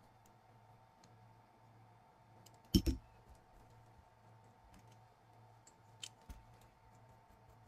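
Light clicks and knocks of small plastic parts as a mini RC crawler's chassis and axle are handled, with one sharp double knock a little under three seconds in, over a faint steady hum.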